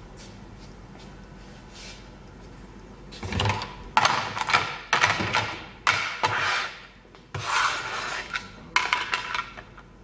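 Stacked plastic food-container lids handled on a wooden table: a run of clacks and scraping rubs of plastic on plastic and wood, starting about three seconds in and stopping near the end.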